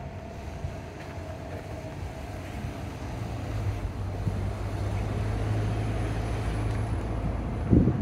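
Low, steady engine rumble of a passing vehicle, growing louder from about three seconds in, with a short gust of wind buffeting the microphone just before the end.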